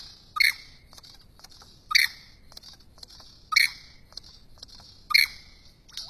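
Male superb lyrebird singing in courtship display: four loud, sharp calls about a second and a half apart, over a steady high hiss.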